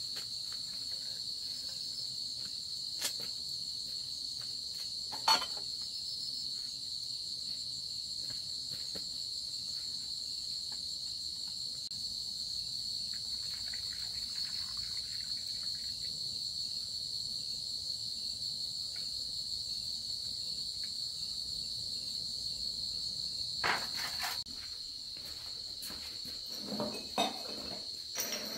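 Insects trilling in one steady, unbroken high-pitched tone, with a few sharp knocks or clicks over it, the loudest about five seconds in and several more near the end.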